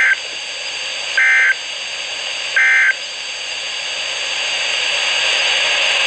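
Midland NOAA weather radio sending the three short SAME end-of-message data bursts, about 1.3 s apart, that close an EAS severe thunderstorm warning broadcast. A steady radio hiss runs underneath and grows slowly louder after the last burst.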